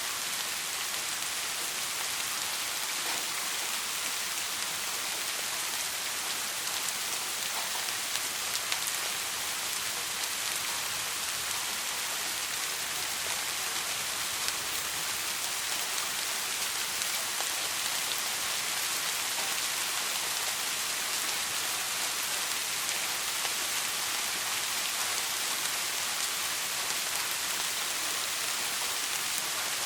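Steady rain falling, an even hiss with scattered patter of drops hitting a surface.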